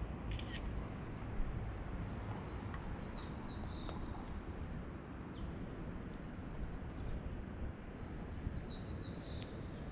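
Outdoor ambience with a steady low rumble and a steady high-pitched hum. A bird gives a short run of high chirps twice, about two and a half seconds in and again near the end. A few faint clicks are heard, one sharper about a second and a half in.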